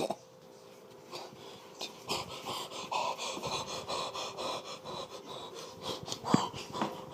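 A person breathing hard, in a string of short, irregular raspy breaths that start about a second in.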